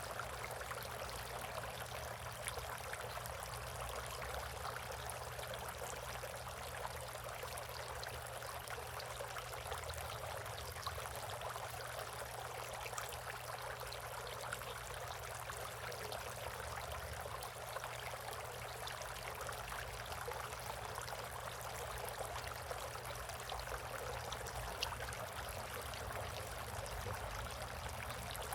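Water trickling and splashing steadily in a bird bath, with a low steady hum underneath.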